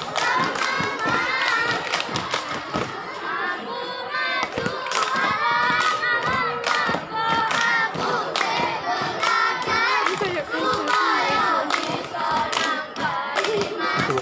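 A group of children singing or chanting together in unison, with many sharp claps and thuds of hands and feet mixed in as they perform a group routine.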